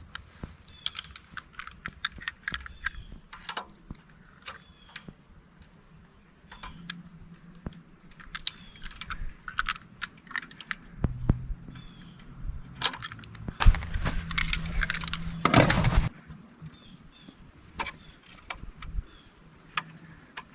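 Small metal clicks and clinks of hand tools, screws and wire being handled while a breaker panel is wired, with a steady low hum in the middle and a louder scraping rush about 15 seconds in.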